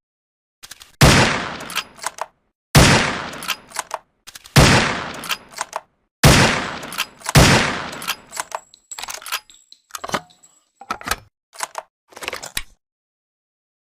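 SRP rifle firing five shots, each with a ringing tail, spaced about one and a half to two seconds apart. Short, quieter clicks come between the shots, and a run of clicks follows the last shot.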